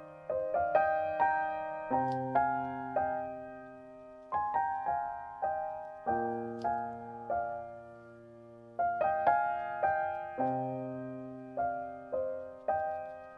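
Slow, gentle background piano music: single notes struck and fading over low notes that change every few seconds.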